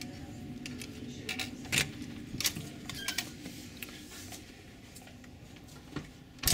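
Cabin door being unlocked and opened: a cluster of sharp clicks and rattles from the lock, latch and handle, with a couple more knocks near the end.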